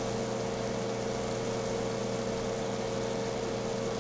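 Aquarium water pumps and air aerators running, a steady hum with an even hiss of water circulation and bubbling.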